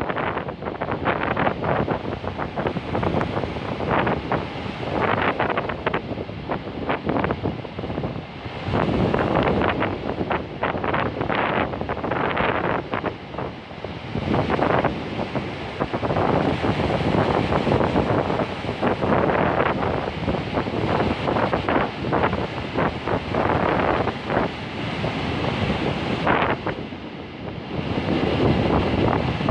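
Sea waves breaking and washing on the shore, swelling and ebbing in surges every few seconds, with wind buffeting the microphone.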